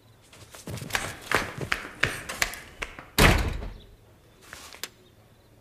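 A run of about six quick knocks, then a heavy thump about three seconds in: a door slammed shut.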